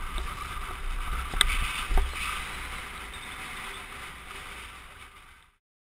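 Wind rumble on a helmet-mounted camera and tyre noise from a downhill mountain bike rolling fast over a dirt road, with a couple of sharp rattles from the bike. The sound fades away and cuts to silence near the end.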